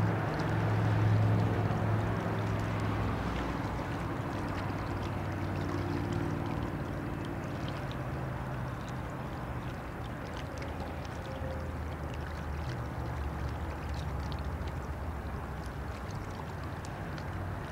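Diesel engine of a passing inland tanker barge, a steady low drone, loudest in the first few seconds, with the rush of water from its hull and wake.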